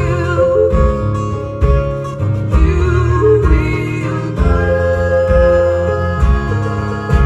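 Live band music: acoustic guitars playing over a steady low beat, with singing.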